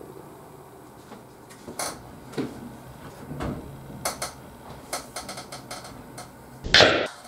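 Small clicks and knocks of a beer can being handled on a table, then near the end a short, loud hiss as the can's pull tab is cracked open.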